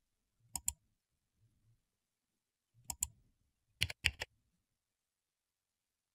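Sharp computer clicks, mouse or keyboard, in three short groups of two or three clicks each, spread over a few seconds with silence between.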